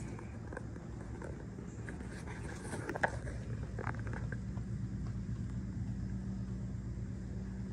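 A steady low hum with a few faint clicks and handling knocks.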